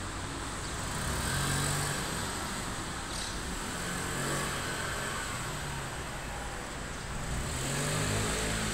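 Road traffic in a town: a steady hum of cars, swelling three times as vehicles pass.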